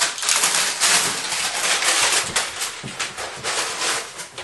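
Baked, partly charred parchment paper crackling and crinkling as it is pulled out from under a hot loaf of bread, with a light scrape on the wire cooling rack; dense and irregular, fading near the end.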